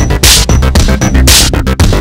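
Electronic dance music, an experimental techno track with heavy bass and recurring bursts of bright hiss, chopped into quick stuttering beats.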